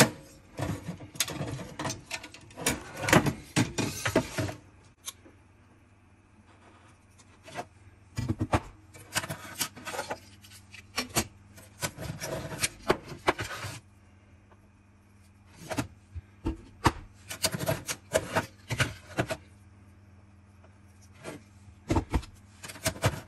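Hard-drive trays being unlatched and slid out of the front bays of a QNAP TS-831X NAS, the drives handled and set down: clicks and scraping in four spells with short pauses between.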